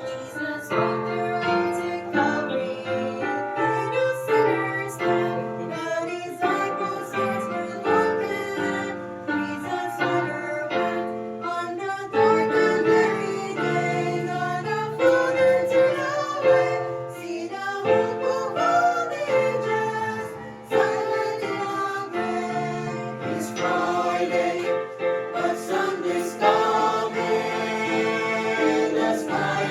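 Gospel song introduction: music with a group of voices singing over an instrumental accompaniment.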